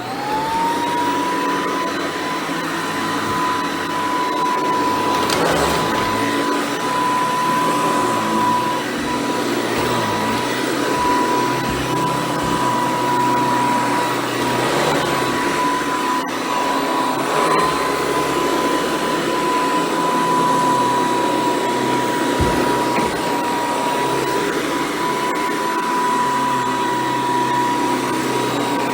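Hoover Decade 800 upright vacuum cleaner switched on, its motor whine rising to a steady high pitch within about a second, then running steadily with a constant rush of air as it vacuums carpet.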